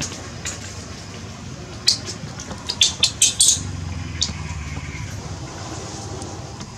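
A quick run of short, sharp clicks and clinks about two to three and a half seconds in, with one more a little later, over a steady low background hum.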